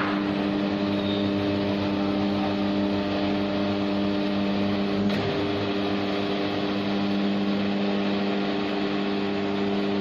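An electric motor starts and runs with a steady hum. There is a short click about five seconds in.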